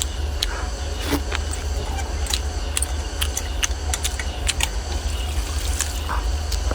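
Close-up eating sounds: chewing with scattered short wet clicks and smacks, over a steady low rumble.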